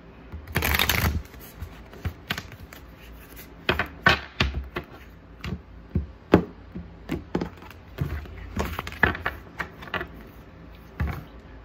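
Oracle cards being shuffled and handled over a table: a short dense rush of shuffling about half a second in, then irregular sharp taps and flicks of cards against each other and the tabletop as cards are drawn.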